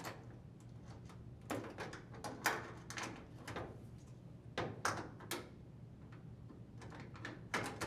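Clatter and knocks of a GE dryer door's metal hinges being set over the screws on the cabinet, heard as three groups of sharp taps and clunks.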